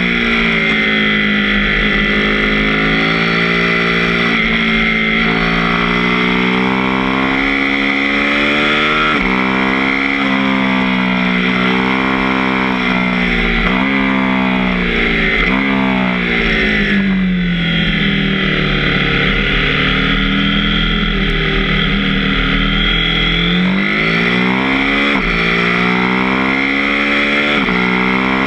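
KTM 790 Duke's parallel-twin engine under way, its pitch rising and falling again and again as the rider opens and closes the throttle through the bends, over low wind rumble on the microphone.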